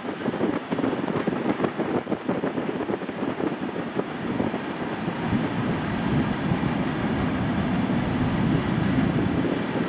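Wind buffeting the microphone over the distant rumble of a freight train crossing a railway bridge. From about five seconds in the low rumble becomes steadier and louder.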